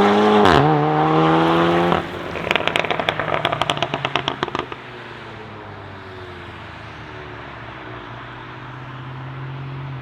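Tuned Volkswagen Golf 7 R's turbocharged four-cylinder accelerating hard, its note climbing in pitch with a quick dip about half a second in. About two seconds in the throttle closes and the exhaust crackles and pops in a rapid string for a few seconds. A quieter engine note remains after that.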